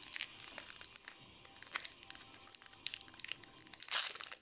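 Crinkling and rustling of Magic: The Gathering card packaging and cards being handled: a run of small crackles, with a louder burst about four seconds in.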